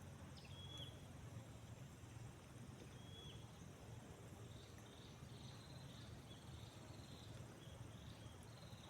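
Quiet outdoor ambience, near silence: faint short high chirps from small wildlife repeating every second or so over a low steady rumble.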